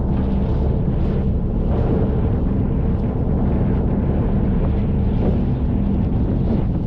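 Boat engine running steadily with a low hum, with wind buffeting the microphone.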